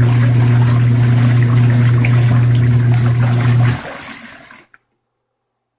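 Giantex twin-tub washing machine running its wash cycle: the wash motor hums steadily while the pulsator churns water and clothes in the tub. Near the end the motor stops and the sloshing dies away.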